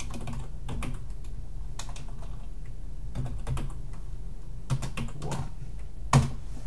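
Computer keyboard typing: a few irregular keystrokes, with one louder key press near the end.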